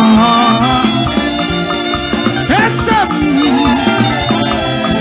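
Lively band music with a steady beat and a melodic line that bends in pitch, played for celebration.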